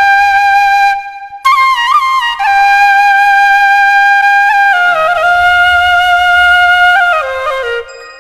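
Bansuri, a side-blown bamboo flute, playing a slow solo melody. It holds long notes with quick ornamental turns between them and steps down in pitch toward the end. There is a brief break in the playing about a second in and another near the end.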